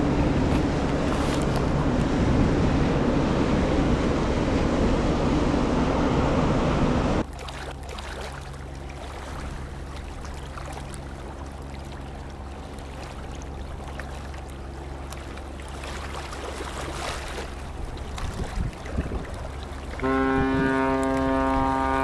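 Passing container ships: first a loud rushing rumble of bow wash and engine, which stops abruptly about seven seconds in; then a quieter, steady low engine drone with a faint hum. About two seconds before the end, a ship's horn starts a long, steady blast.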